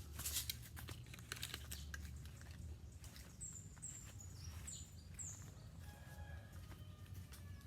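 Pet lovebirds chirping: four short, high chirps in quick succession about halfway through, after a few seconds of light clicks and rustling.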